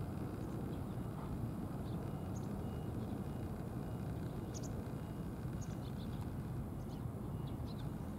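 Outdoor ambience: a steady low rumble with faint, short bird chirps scattered throughout.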